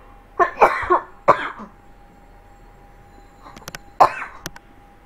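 A person coughing in short, loud bursts: two coughs close together about half a second in and again just after, then another cough about four seconds in.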